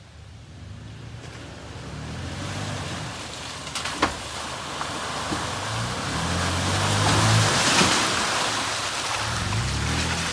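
Toyota FJ Cruiser's V6 engine revving up and down as the truck drives through a muddy water hole, its tyres splashing and churning the water. Engine and splashing grow louder as it approaches, loudest about eight seconds in, with a single sharp knock about four seconds in.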